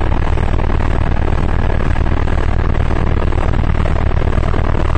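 Eurocopter AS350 BA Écureuil helicopter in flight, its turbine engine and main rotor running steadily with a fast, even throb.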